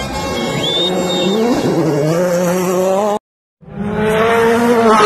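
Ford Fiesta WRC rally car's turbocharged four-cylinder engine revving hard, its pitch climbing, dropping at a gearshift and climbing again, with a high tyre squeal. The sound cuts off abruptly about three seconds in. It then comes back as a rally car engine held at high revs at a fairly steady pitch.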